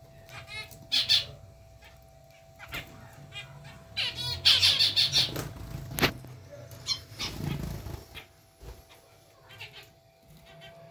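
Zebra finches calling, with short nasal calls and a louder burst of song about four to five seconds in, then a sharp click about six seconds in. A faint steady hum runs underneath.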